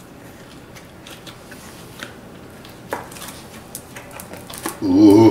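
Scattered small clicks and taps of a plastic mold being flexed and handled as a cured epoxy resin piece is worked out of it, with one sharper click about three seconds in. A voice starts loudly near the end.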